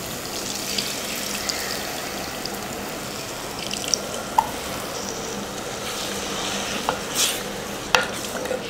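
Tamarind water poured into a clay pot of garlic frying in oil and masala, with liquid splashing and sizzling, then stirred with a wooden spatula. There are a few light knocks in the second half.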